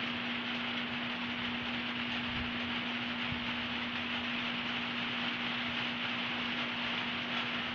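Steady hiss with a constant low hum.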